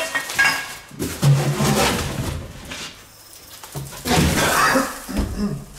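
Cardboard box rustling and scraping as the flaps are pushed about and the tubular steel frame of a bicycle trailer is lifted out of it, in two loud spells, one about a second in and one about four seconds in.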